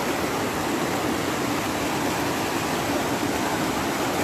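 Floodwater rushing across a street and churning past concrete pipes: a steady, unbroken rush of turbulent water.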